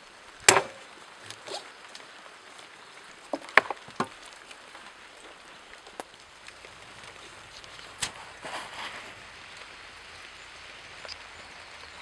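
A few sharp knocks and clunks of a chainsaw being handled on a hollowed spruce log and wooden pallet, the loudest about half a second in and a quick cluster near four seconds, over a steady faint hiss; the saw's engine is not running.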